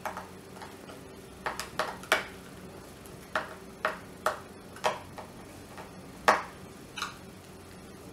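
Hand screwdriver turning a screw into the plastic handle of a dry iron: about ten sharp clicks at uneven intervals as the tip works the screw, the loudest a little past six seconds in.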